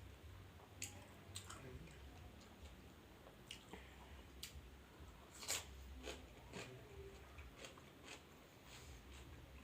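Faint close-up eating sounds: a person chewing, with scattered small crunches and wet mouth clicks, the loudest about five and a half seconds in.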